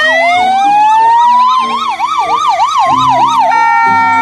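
Ambulance sirens. A fast warbling yelp runs over a slower rising and falling wail, and about three and a half seconds in they change to a steady held tone.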